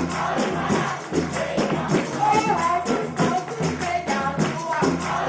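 Music: voices singing over a fast, steady percussion beat.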